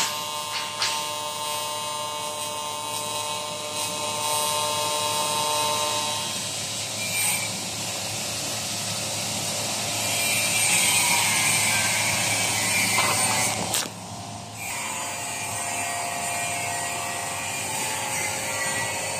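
Steady mechanical running noise of workshop machinery: a hum with steady tones at first, giving way about six seconds in to a louder even hiss that briefly drops away near fourteen seconds.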